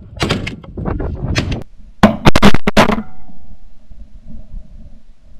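A rapid volley of about six shotgun blasts a little after two seconds in, the loudest sound here, following a second and a half of sharp crackling knocks. After the volley comes a faint, steady low hum.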